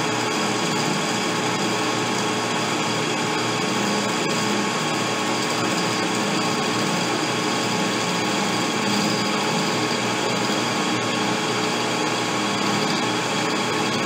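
Metal lathe running under power feed while a high-speed-steel boring bar takes a light single-point pass, about five thousandths deep, inside a stainless steel rifle barrel's bore, truing it before chambering. It is a steady machine whir with several constant tones that holds unchanged throughout.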